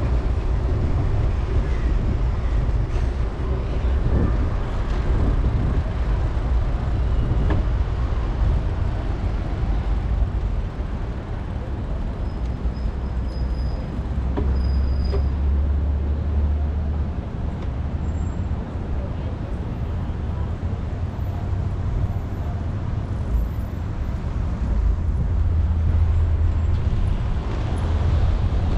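Wind buffeting the microphone of an action camera on a moving bicycle: a steady low rumble that swells and eases, over a haze of road and traffic noise.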